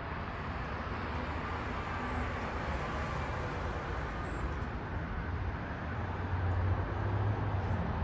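Steady urban road-traffic rumble, growing louder in the last couple of seconds as a vehicle passes, with a few faint, very short high chirps.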